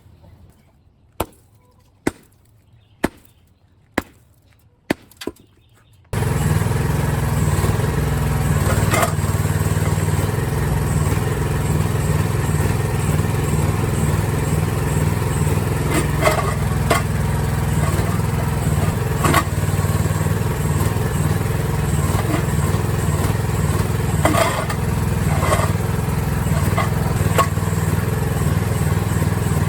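Five sharp clicks about a second apart over near-quiet, then a mini excavator's engine comes in abruptly and runs steadily under load. Scattered sharp knocks and cracks through it are its bucket breaking up concrete.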